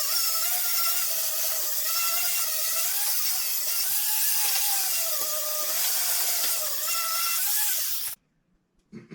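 A handheld power tool running steadily at high speed, its whine wavering slightly in pitch, then cutting off suddenly about eight seconds in.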